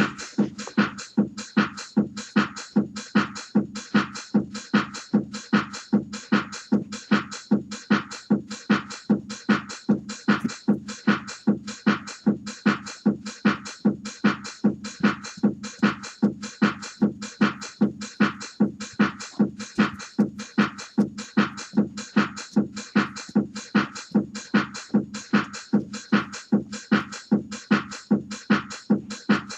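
Music with a steady, evenly repeating beat, about two beats a second.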